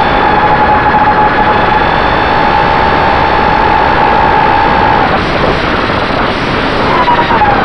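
FPV racing quadcopter's motors and propellers whining at a steady pitch over a loud rush of wind and prop noise. The whine drops out about five seconds in and returns near the end, starting higher and stepping down.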